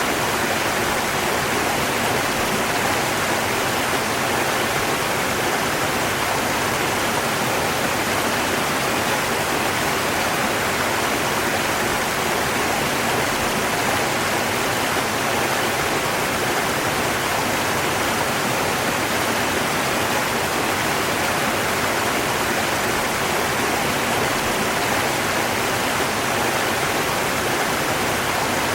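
River water rushing steadily, an even, unbroken wash of noise with no distinct splashes or changes.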